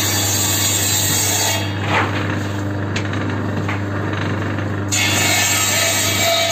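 Bench-mounted circular saw running steadily and cutting wooden planks into strips. The cutting noise drops away a little under two seconds in while the motor keeps running, and the next cut starts about five seconds in.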